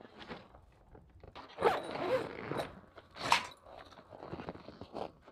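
A plastic tarp rustling and crinkling as it is handled, with two louder crinkles about a second and a half apart.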